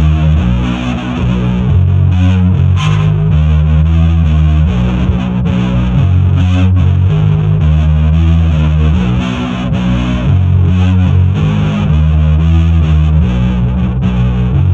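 Heavy rock instrumental: a distorted electric guitar riff run through effects, playing a repeating pattern of low, heavy notes over bass, with no vocals.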